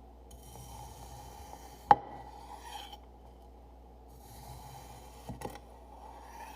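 Kinetic sand being cut with a knife: two passes of gritty scraping and rasping, each lasting a couple of seconds. A sharp tap about two seconds in is the loudest sound, and two softer taps come during the second pass.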